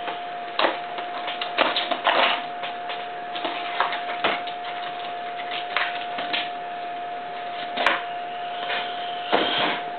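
Irregular rustling and clicking of packaging and a small die-cast model excavator being handled while it is unpacked, over a steady high-pitched tone.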